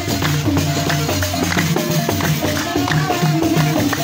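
Balafon music: wooden xylophone keys struck in quick runs of short notes at several pitches over a repeating low figure, played by musicians walking in procession.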